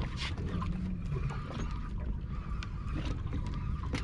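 Wind rumbling on the microphone and water lapping against the hull of a drifting small boat, with scattered small clicks and knocks from the fishing gear on deck.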